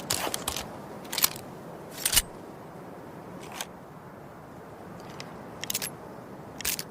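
Revolver mechanism sound effect: about eight separate sharp metallic clicks at uneven intervals, the loudest two about a second and two seconds in, like a revolver being handled and cocked before firing.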